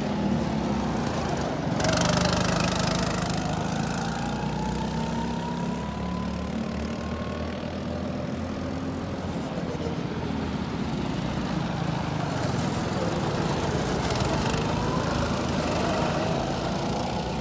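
Small go-kart engines running on the track, their pitch climbing in long rises as karts accelerate past, twice, over a steady drone of other karts.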